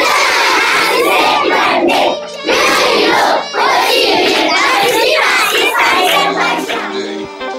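A large group of children shouting and chanting together in loud waves. Near the end, electronic music fades in.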